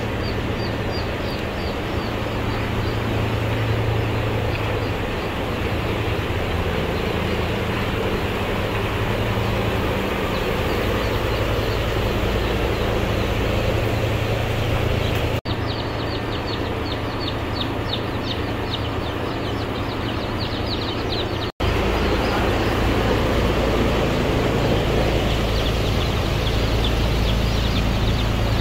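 Steady mechanical hum of hatchery machinery such as incubator fans, with many chicks peeping rapidly and continuously over it. The sound drops out briefly twice.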